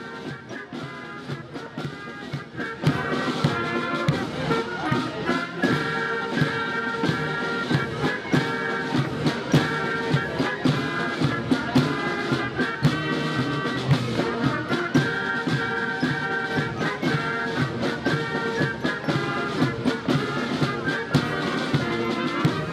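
Marching band playing in the open air: snare and bass drums keep a steady beat under wind instruments, and the music grows louder about three seconds in.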